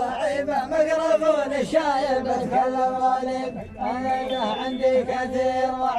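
A group of men chanting a line of verse together in the Asiri dammah style, in unison with long held notes.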